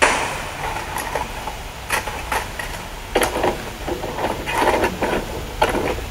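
VCR playback sounds: a sudden burst of noise that fades over about a second, then a run of irregular clunks and clicks of the tape mechanism with hiss as the machine goes from stop to play.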